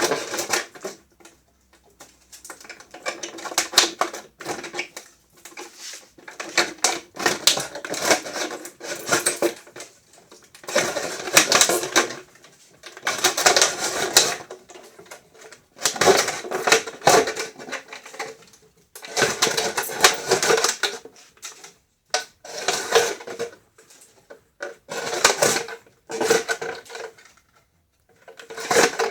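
Plastic bottle crackling and rasping as it is drawn through a homemade bottle cutter and sliced into a long strip, in bursts of one to two seconds with short pauses between pulls.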